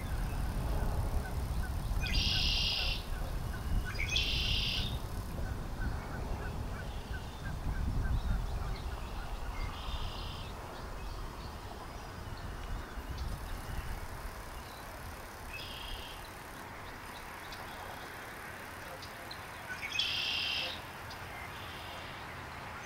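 Short, buzzy bird calls from wetland birds, repeated about five times with long gaps: twice close together early on, then once at intervals near the middle and near the end. A low rumble sits under the first half.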